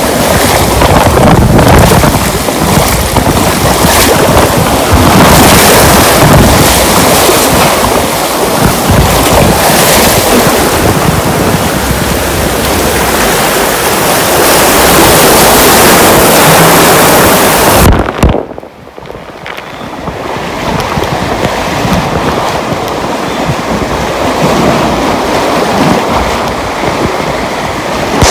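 Water rushing under an inflatable tube as it slides down a water slide, with heavy wind buffeting on the microphone. About 18 seconds in, a sharp knock, then the sound goes briefly muffled before the rush builds back.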